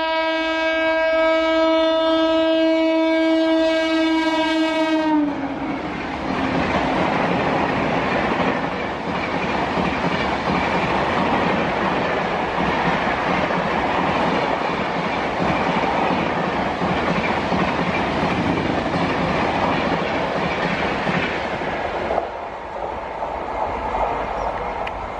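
WAP-5 electric locomotive sounding a long, steady horn as it approaches at speed; the horn dips in pitch as the locomotive passes and cuts off about five seconds in. Its passenger coaches then rush past with a rattling clatter of wheels on rail joints, which eases off shortly before the end.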